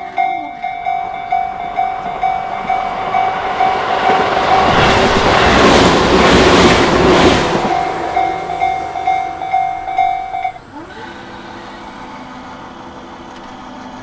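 Japanese level-crossing warning bell clanging at an even pace, about two strikes a second, while an electric train on the Tobu Isezaki Line passes, its rumble loudest about six seconds in. The bell stops about ten and a half seconds in, leaving a low steady hum.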